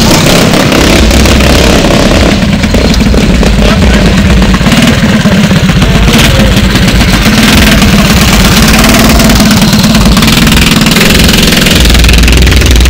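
Small-engine minibike running loudly, with a fast, steady firing beat.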